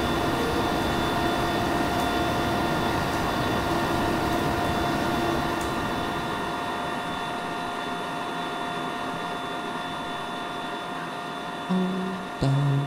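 Steady rushing noise of a pottery kiln firing, its burners and fire running with a constant hum and a few fixed whining tones, slowly fading. A few plucked guitar notes come in near the end.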